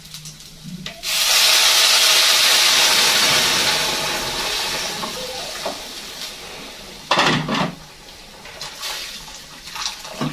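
Water poured from a kettle into a pot of fried rice and spaghetti: a loud rush that starts suddenly about a second in and fades away over the next several seconds.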